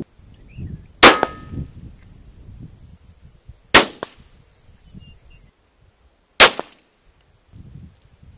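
Three rifle shots from a Savage B-Mag bolt-action in 17 Winchester Super Magnum rimfire, spaced about two and a half seconds apart, each a sharp crack with a short trailing echo.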